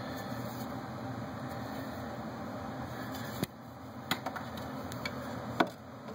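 A steady fan-like hum that drops away a little past halfway. Then several sharp clicks and knocks as a yardstick is brought against the concrete basement wall, the loudest near the end.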